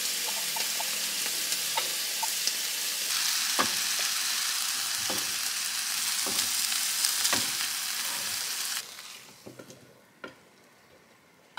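Meat and vegetables sizzling in a frying pan as they are stir-fried, with a spatula knocking against the pan several times. The sizzle cuts off suddenly near the end, leaving a few light taps of the spatula against a wooden bowl.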